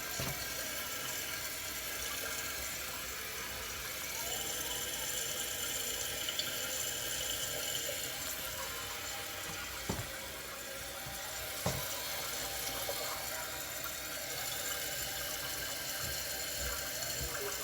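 Kohler Cimarron toilet tank refilling after a flush: water running steadily through the fill valve, with a couple of light knocks about ten and twelve seconds in.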